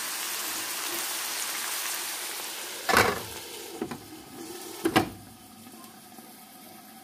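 Chicken gizzards frying in a pan with a steady sizzle. About three seconds in, a pot lid knocks sharply against the pan, again about two seconds later as it is set on, and the sizzle then goes quieter and muffled under the lid.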